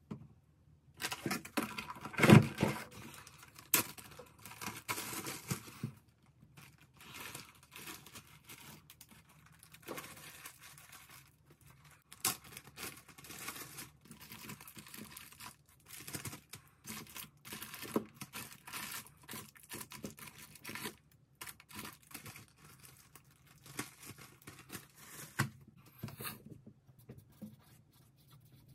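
Food packaging and plastic wrap being handled while a packed lunch is put together: crinkling, rustling and tearing in irregular bursts, loudest about two seconds in.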